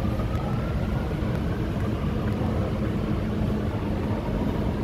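Dubai Metro Alstom train pulling out of an underground station, heard from inside the car: a steady running rumble, with a faint rising whine as it picks up speed in the first couple of seconds.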